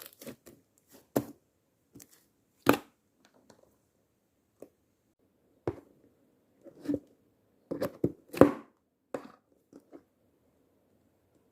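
Slime being squeezed and pressed by hand, giving scattered sharp pops and crunches, about a dozen of them at uneven intervals, the loudest near the end.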